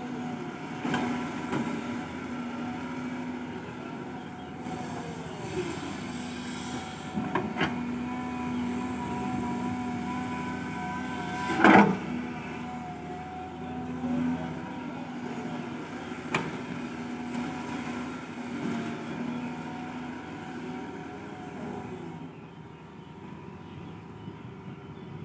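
Caterpillar 320 hydraulic excavator running under load as it works its boom and bucket. Its diesel engine holds a steady note under a hydraulic whine that rises and falls with each arm movement. A single loud knock about halfway through stands out, with a few lighter clicks elsewhere.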